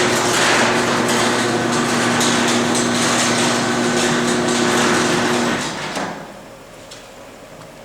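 Electric garage door opener running: a steady motor hum under the rattle of the door moving on its tracks. It stops about six seconds in.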